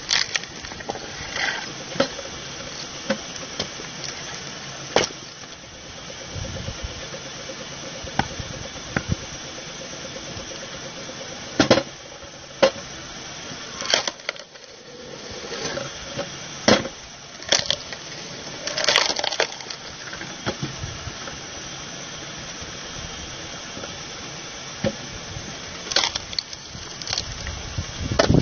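Belt-driven screw-cone log splitter running steadily as logs are pushed onto the spinning threaded cone, with repeated sharp cracks of the wood splitting apart.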